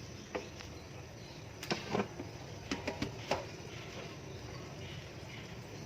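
A handful of short clinks and knocks of a utensil against a cooking pan while spaghetti is stirred through a cheesy sauce, over a low steady hum.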